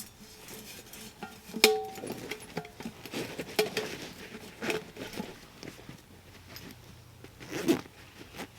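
Camping gear being handled and packed: irregular rustles and knocks, with a sharp clink that rings briefly about two seconds in and another loud knock near the end.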